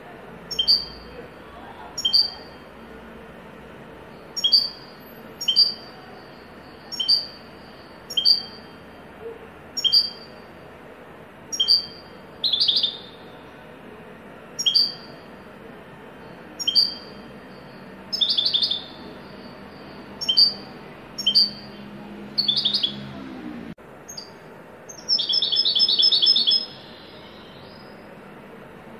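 European goldfinch singing a Haddadi-style song: short, sharp high notes repeated about once a second, broken by quick buzzy trills, with a longer trill near the end.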